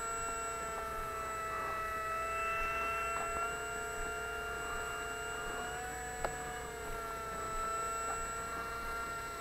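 Electric motor and propeller of an FMS 1700mm P-47 radio-controlled model plane running at steady partial throttle: a steady whine of several pitches that shifts only slightly, with a single sharp click about six seconds in.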